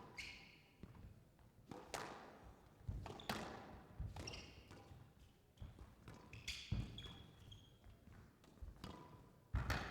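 Squash rally: the ball is struck by rackets and smacks off the court walls every second or so, with short shoe squeaks on the court floor.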